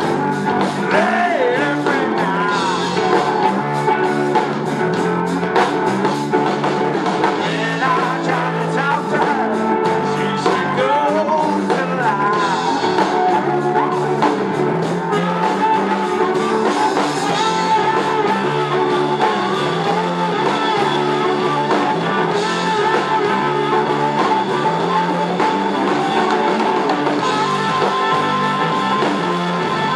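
Live blues-rock band playing: electric guitar from a homemade double-neck guitar-and-bass built from a car muffler, over bass and drum kit, with some singing.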